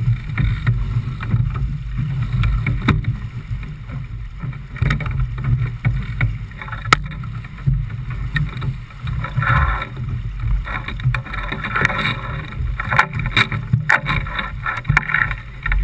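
A J/24 sailboat sailing hard upwind through choppy sea: a steady low rumble of wind buffeting the microphone, with water rushing and splashing along the hull and scattered sharp knocks.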